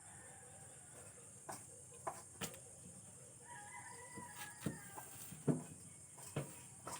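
Chickens in a yard, with a rooster crowing for about a second and a half in the middle. Several irregular short sharp knocks; the loudest comes about five and a half seconds in.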